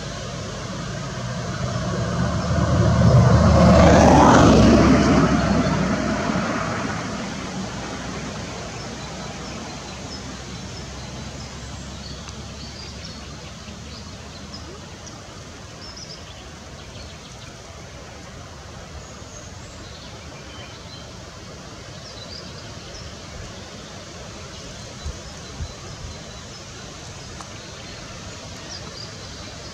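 A vehicle passes by, rising to a peak about four seconds in and fading away over the next few seconds. A steady outdoor hiss continues, with two short clicks near the end.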